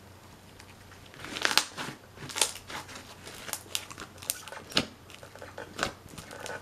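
Pink crackle slime with embedded beads being stretched and pressed into its plastic tub, giving sharp, irregular sticky clicks and crackles that start about a second in.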